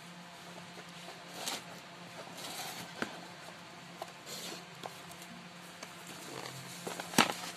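Small cardboard box being handled and its tuck flap pried open by hand: scattered light scrapes and taps, with one sharper tap near the end, over a steady low hum.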